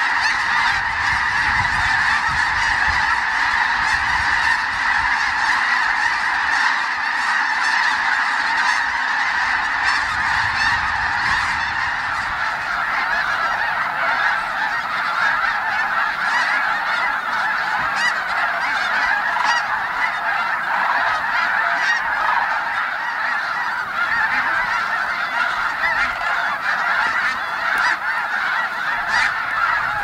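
A huge flock of snow geese calling without pause, a dense clamour of countless overlapping honks. A low rumble runs under the calling for the first ten seconds or so, then fades.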